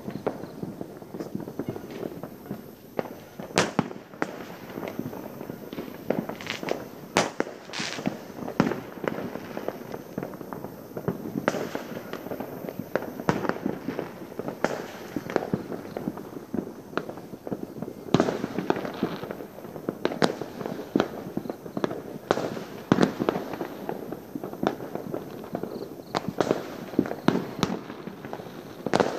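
Fireworks going off at a distance: an unbroken run of many overlapping bangs and pops, with louder single bangs every few seconds.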